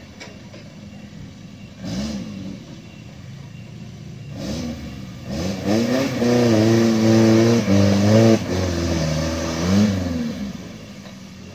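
Suzuki Jimny 4x4's engine under load climbing a rocky, rutted slope: a short rise and fall in revs about two seconds in, then loud, held-high revving from about five seconds in that eases off near the end.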